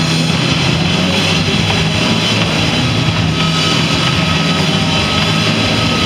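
Roller skate wheels rumbling steadily on a small round stage platform as a skater spins his partner around him.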